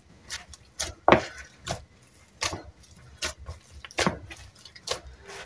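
Hands kneading and slapping a very soft, oiled pastry dough in a plastic bowl: about seven wet slaps, irregularly spaced.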